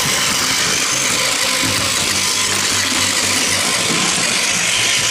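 Battery-powered Plarail toy train running on plastic track after a motor pinion replacement: a steady, loud whir of the small motor and gears with the rattle of the wheels.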